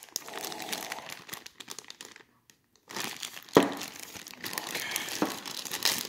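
Clear plastic zip-top bag crinkling as it is handled, in two spells with a short silent pause between them. A single sharp knock comes about three and a half seconds in.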